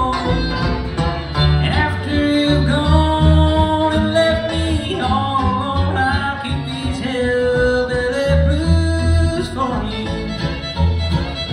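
Live bluegrass band playing an instrumental break without vocals: fiddle, five-string banjo, mandolin and acoustic guitar over a steady upright bass pulse.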